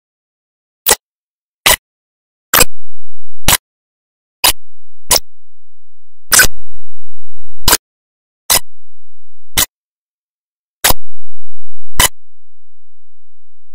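A series of sharp clicks, about one a second and unevenly spaced, with dead silence between them.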